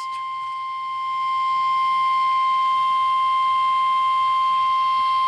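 NOAA Weather Radio 1050 Hz warning alarm tone heard over a weather radio receiver: a single steady high tone that grows a little louder about a second in and holds level, marking the start of the required weekly test broadcast.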